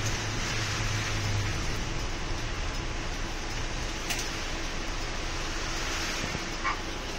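Cabin noise inside a city bus moving slowly in traffic: the engine's low drone under a steady fan-like hiss, the low hum easing off about a second and a half in. A faint click comes near the middle and a brief squeak near the end.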